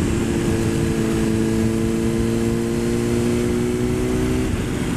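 A 2006 Honda CBR600RR's inline-four engine running at steady cruising revs, its note sagging slightly, over heavy wind rush on the microphone. Near the end the steady engine note breaks off as the revs change.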